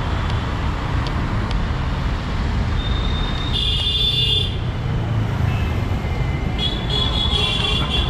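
Busy road traffic: a steady low rumble of engines and tyres, with vehicle horns sounding for about a second just before halfway and again near the end.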